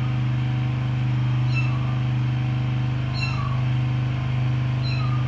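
A kitten mewing four times in short, high, slightly falling cries spaced about a second and a half apart, over a loud steady low hum.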